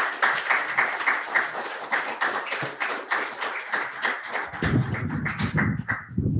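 Small group applauding: many hand claps in quick succession. A deeper, thudding sound joins in about four and a half seconds in.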